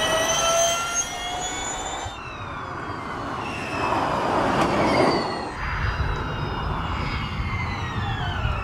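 Porsche 99X Electric Formula E car's electric drivetrain whining, rising in pitch as it accelerates; about four seconds in a rush of noise comes as it passes, then the whine falls in pitch over a low rumble of tyres on the track.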